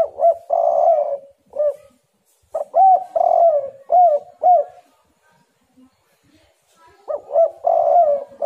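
Spotted dove (tekukur) cooing: three phrases of its song, each made of short arching coos around a longer drawn-out coo, with a short pause after the first phrase and a longer one after the second.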